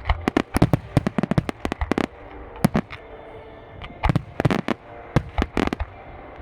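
Fireworks display bursting: a rapid volley of sharp bangs for about two seconds, one lone bang near the middle, then another quick cluster of bangs.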